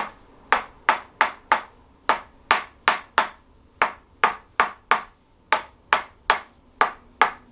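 Handheld chiropractic adjusting instrument firing against the patient's back, sharp clicks about two to three a second in runs of about four with short pauses between.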